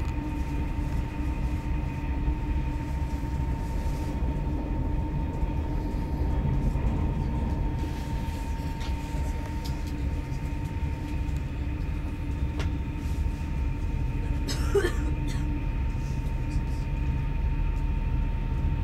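Inside an electric passenger train running at speed: a steady low rumble from the running gear with a constant humming tone on top. About fifteen seconds in there is a brief wavering sound.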